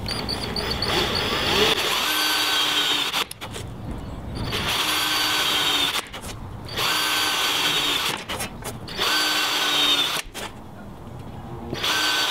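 Makita cordless drill running a 3/16 step drill bit through a curtain rail to make screw holes: about four runs of steady drilling with short pauses between holes.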